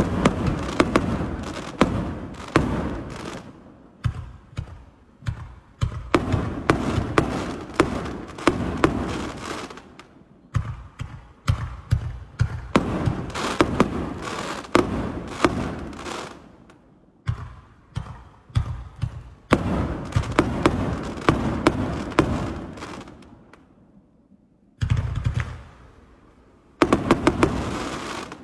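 Multi-shot firework cakes firing: rapid launch thumps and aerial bursts, several a second, with crackle, in volleys that pause briefly and start again.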